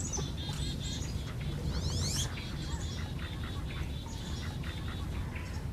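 Bird calls: a run of short, high chirps with a quick rising sweep about two seconds in, over a steady low background rumble.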